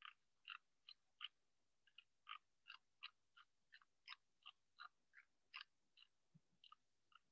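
Faint typing on a computer keyboard: about twenty short, irregularly spaced key taps, with two soft low thumps near the end.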